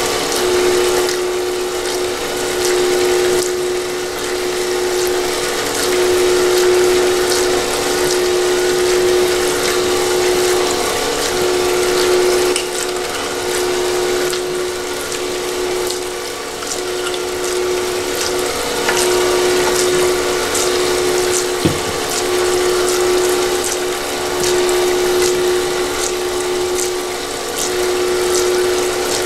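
Automatic gold panning machine running: its motor and pump give a steady hum, over splashing water from the spray tube onto the turning spiral pan, with scattered small clicks.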